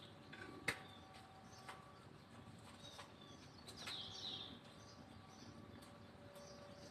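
Faint outdoor quiet broken by a sharp knock of a long-handled digging tool against the soil a little under a second in, with a few lighter ticks after. A bird chirps briefly about four seconds in.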